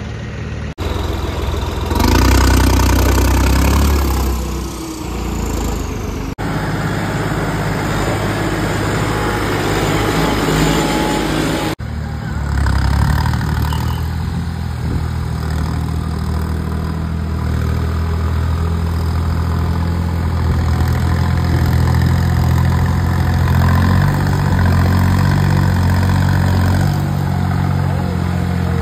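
Diesel tractor engines running as tractors haul heavily loaded sugarcane trolleys, a New Holland 3630 among them, with a steady low engine hum. The sound changes abruptly a few times, and is loudest for a couple of seconds near the start.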